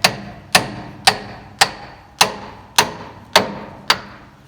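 A hammer striking metal: eight evenly spaced blows, about two a second, each ringing briefly.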